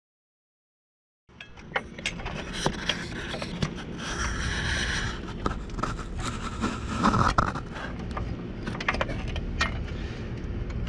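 Clanks, knocks and scraping of hand tools and metal parts while a Mazdaspeed 3's crank pulley is removed, starting about a second in after silence.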